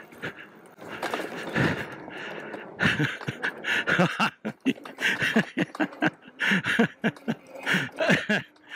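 Folding fat-tire e-bike jolting over a rough dirt trail: rapid, irregular knocks and rattles from the frame, rear rack and fenders, busiest in the second half.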